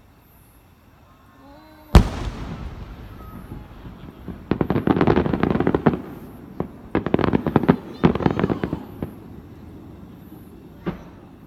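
Fireworks display: a loud aerial shell bursts with a boom about two seconds in and echoes away, followed by two spells of dense crackling and a single sharp pop near the end.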